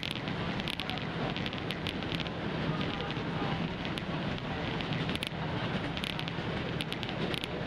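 Interior noise of a Class 156 diesel multiple unit running at speed: a steady low drone from the underfloor diesel engine and the wheels on the rails, with a light, irregular crackle of ticks on top.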